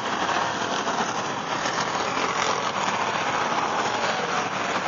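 A pack of enduro race cars running together around the oval, their engines blending into one steady, dense engine noise with no single car standing out.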